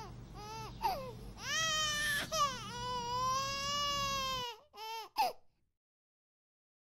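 A toddler crying in long, wavering wails that cut off suddenly about four and a half seconds in, followed by two short sobs.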